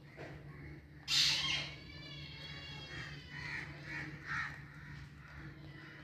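A bird calling repeatedly: one loud call about a second in, then a string of shorter calls, over a steady low hum.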